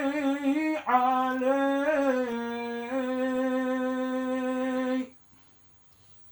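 Unaccompanied solo male voice singing a Yemeni madrahah (Hajj pilgrims' song). It moves in ornamented, sliding phrases, then holds one long steady note and breaks off about five seconds in.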